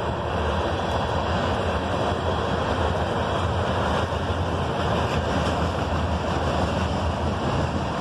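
Freight train of covered hopper cars rolling across a railway trestle: a steady, unbroken noise of wheels on rails.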